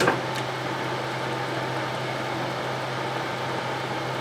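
Cylindrical grinder's workhead motor switched on with a click, then running steadily, spinning the collet chuck for a runout check.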